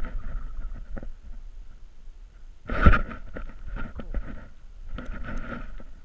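Footsteps walking over dry grass and forest floor, with wind and handling rumble on the mic of a carried camera. There is a louder bump about three seconds in.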